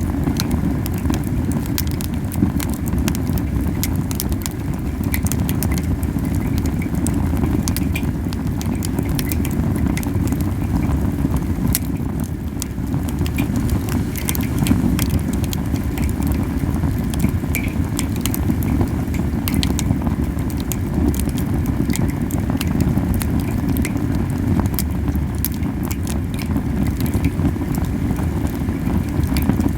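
Camellia-wood campfire burning hot, with a steady low puffing rumble of flame that is strong because the fire is burning too fiercely, and frequent sharp crackles and pops of the burning wood.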